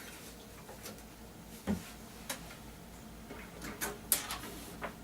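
A few scattered light clicks and knocks of gear and cables being handled on a bench, the loudest a dull knock a little under two seconds in, with a quick cluster of clicks near the end.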